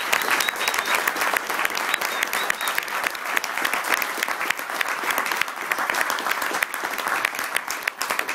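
Small audience applauding at the end of a song: many hands clapping, with a dense, steady patter of claps close by.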